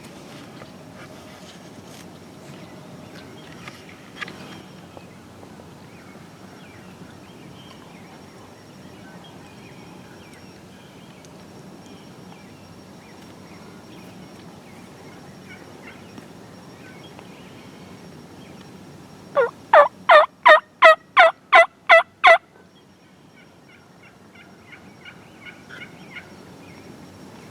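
A loud series of about nine turkey yelps, evenly spaced at roughly three a second, about two-thirds of the way through. A fainter, quicker run of turkey calling follows near the end.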